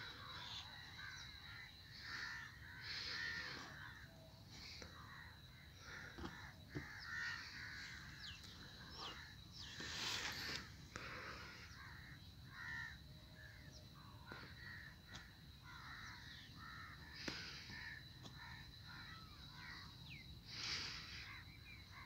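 Faint outdoor bird calls: crows cawing and small birds chirping on and off, over a faint steady high-pitched tone.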